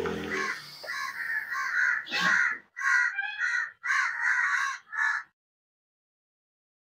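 A crow caws repeatedly in short, loud calls. Under the first of them a vacuum packing machine's pump hums steadily and then stops, about half a second in. The sound cuts off abruptly a little past the middle.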